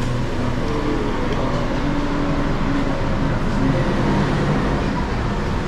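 Steady street traffic noise, motor vehicles running and passing, with faint indistinct voices under it.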